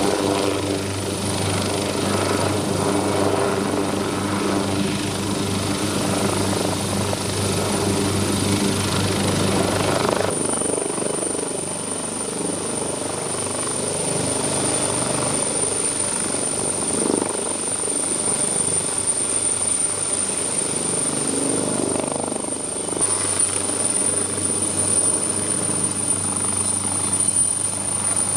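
MH-139A Grey Wolf helicopter running, its twin turboshaft engines and rotors going with a steady high turbine whine, first turning on the ground and then airborne low and flying past. The sound shifts abruptly about ten seconds in and again near the end.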